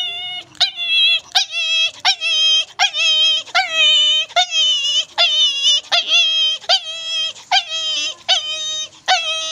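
A man imitating a hurt or hungry dog crying in pain: a steady run of high-pitched yelping whimpers, about one every 0.7 seconds.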